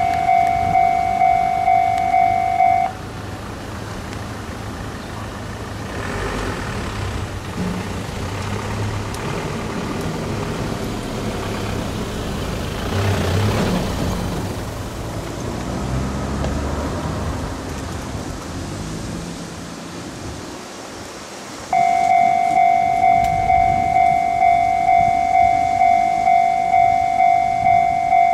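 A level-crossing warning bell rings in even strikes, about two a second; it stops about three seconds in and starts again near the end. In between, the diesel engines of a KiYa E195-1000 rail-transport train run as it pulls out, rising and falling and loudest about halfway through.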